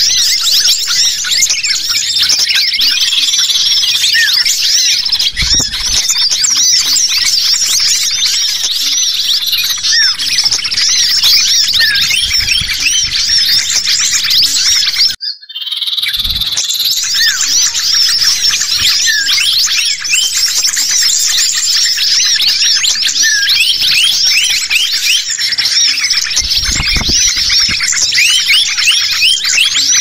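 Bird-lure recording: a dense, layered mix of many small songbirds giving rapid high chirps and trills, built around the agitated calls of ioras (cipoh). The sound cuts out for an instant about halfway through, then resumes.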